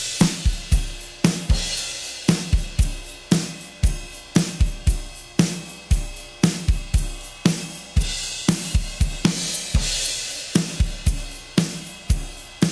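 Recorded drum kit playing a steady groove: kick, snare, hi-hat and cymbals, about two to three hits a second. It is being run through an Audio-Scape 260VU stereo compressor, a dbx 160 replica, whose controls are being adjusted while it plays.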